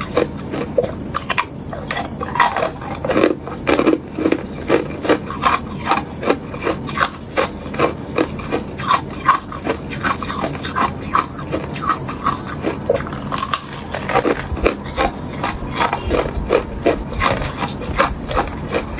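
Clear hard ice being bitten and crunched close to the microphone: a rapid, uneven string of sharp cracks and crackles as pieces break off a frozen-together clump of ice chunks.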